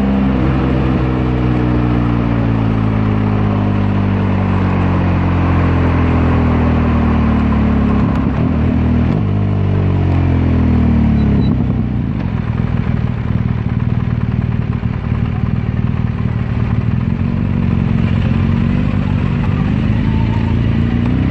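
BMW R1200GS LC's boxer-twin engine slowing on the overrun, its note falling as the bike decelerates. About eight seconds in, the note jumps up once, as with a downshift, then falls again and settles from about twelve seconds in to a low steady rumble as the bike rolls slowly toward a stop. Wind noise runs underneath, lighter once the bike is slow.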